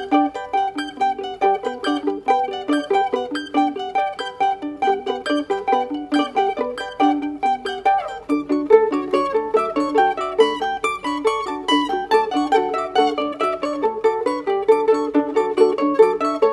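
Several layered mandolin parts improvising together: plucked notes in quick, interlocking patterns. The texture thickens about eight seconds in.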